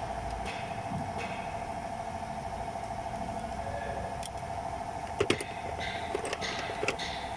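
Metal hand tools clicking against the valve springs and cylinder head of a Ford 4.6L engine during valve seal work. There is a sharp pair of clicks about five seconds in and a few lighter ones after, over a steady background hum.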